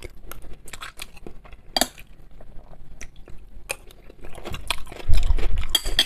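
Close-miked eating: chewing, with a spoon and a fork clinking and scraping on china plates. A sharp clink comes just under two seconds in, and a louder clatter with dull knocks near the end as the fork digs into the salad plate.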